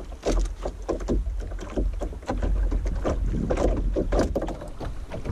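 Water splashing around a canoe, with many irregular small splashes and knocks, and a steady low rumble of wind on the microphone.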